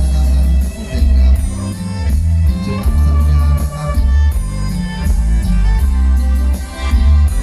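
Loud Thai luk thung band music, with a heavy bass line and a steady drum beat.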